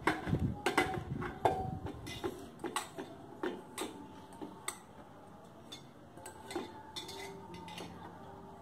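Moong dal tipped from a steel bowl into a pressure cooker: a dense clatter of grains and metal clinks at first, thinning after a couple of seconds to scattered light taps of the bowl against the cooker as the last of it is shaken out.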